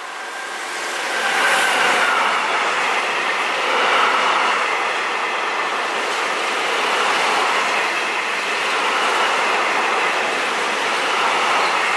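DB Class 185 electric locomotive hauling a freight train of tank wagons passes close by. The noise swells over the first second or so as the locomotive goes past, then holds steady with the wheels of the tank wagons running on the rails.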